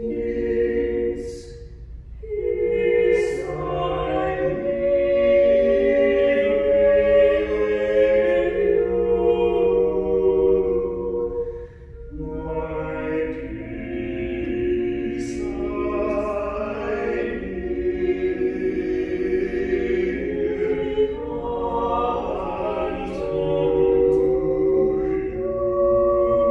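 A mixed vocal quartet of two women and two men singing a choral anthem in parts, unaccompanied, with short breaths between phrases about two and twelve seconds in.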